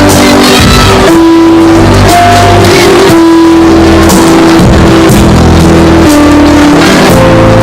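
Loud music with guitar and drums, carried by long held notes and regular drum and cymbal hits, with no singing.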